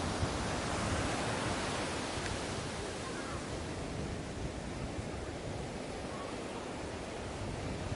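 Sea waves washing onto a beach: a steady rush of surf, fuller in the first few seconds and easing slightly as the wash draws back.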